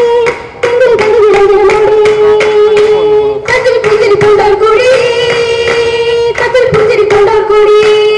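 Oppana song: a group of girls' voices singing a Mappila melody in long held notes, accompanied by the dancers' rhythmic hand claps.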